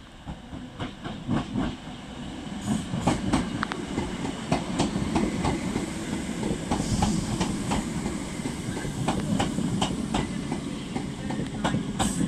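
Northern passenger train rolling into the platform, its wheels clicking and knocking over rail joints above a low rumble that swells about two seconds in and then holds steady.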